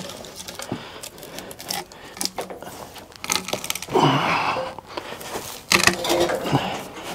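Scattered light metallic clinks and knocks with scraping, and a louder scraping rustle about four seconds in.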